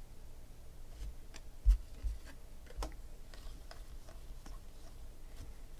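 Trading cards handled and shuffled between the hands: scattered light clicks and snaps, with a thump a little under two seconds in.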